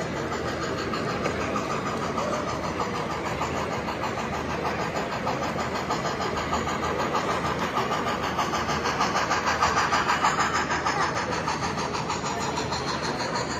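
Model train running past on the layout: a steady mechanical running noise with a fast, even pulse, growing louder to a peak about ten seconds in and then fading a little.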